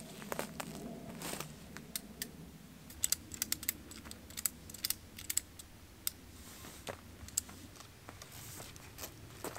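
Irregular light clicks and taps with some rustling, from hands working a wooden pole gate frame and pulling a red strap around it. The clicks bunch together in the middle.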